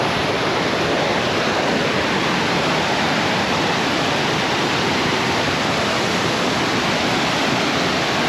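Waterfall running high after rain: a loud, steady rush of heavy falling water.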